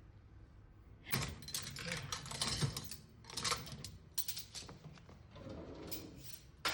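Dishes and utensils clattering and clinking as a dishwasher is unloaded, in a run of quick rattles starting about a second in.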